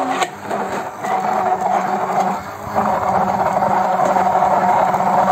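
Electric immersion blender running in a glass jar of homemade chocolate spread, its motor giving a steady hum that grows louder about halfway through as it blends in added oil to thicken the mixture.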